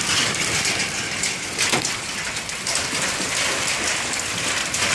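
Quarter-size hailstones falling steadily: a dense, continuous patter of countless small hits, with one sharper knock a little under two seconds in.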